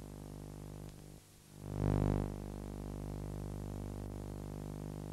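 Steady electrical hum with a buzz of many evenly spaced overtones from the archive tape transfer, at a join between two tape reels. The hum drops out for a moment about a second in, a brief dull burst of noise follows about two seconds in, and then the hum carries on.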